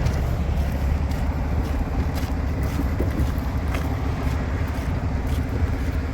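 Large diesel truck engine idling steadily: a low, even rumble with a constant hum.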